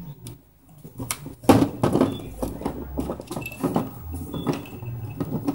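Irregular knocks and rattles of a plastic mini-golf putting green as a kitten paws at it, the loudest about a second and a half in.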